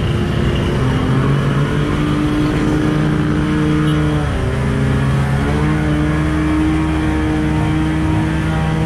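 Fire pump engine running hard and driving a hose. Its pitch sags about four seconds in, then climbs back up about a second later.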